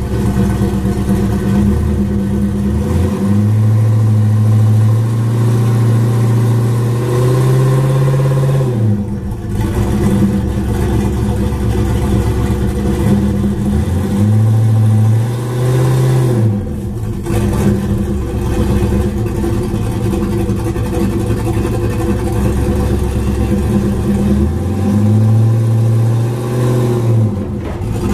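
Chevrolet Camaro's engine pulling under load, revving up three times for a few seconds each and dropping back between pulls, as the car drags a heavy engine pallet off a trailer.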